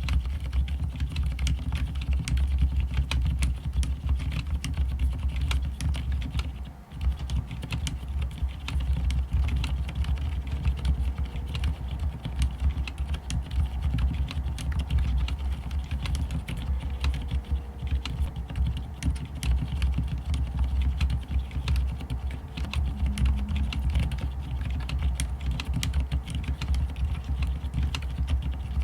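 Continuous typing on a plateless mechanical keyboard with fully lubed Cherry MX Silent Red switches: soft, muted keystrokes where the switches themselves make almost no noise and mostly the fingertips striking the keycaps are heard. A brief pause about seven seconds in.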